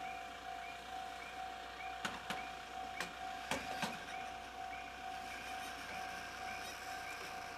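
Japanese level-crossing warning bell ringing in a steady repeating ding, a little under two rings a second. Several sharp knocks come between two and four seconds in, as the van pushes up the lowered barrier arm.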